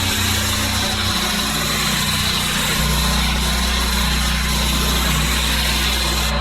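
Petrol pressure washer running steadily, its engine humming under the continuous hiss of the high-pressure water jet on driveway paving.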